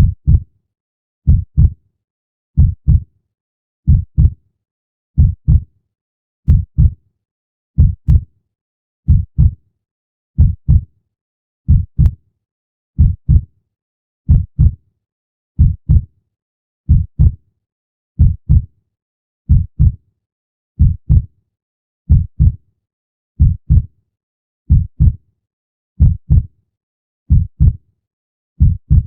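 Heartbeat sound effect: a slow, steady lub-dub, two low thumps close together, repeating evenly about every 1.3 seconds with silence between.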